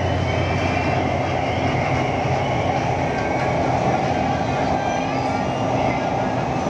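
Steady running noise of a metro train heard from inside the passenger car: a continuous rush of wheels on rail over a low, steady hum.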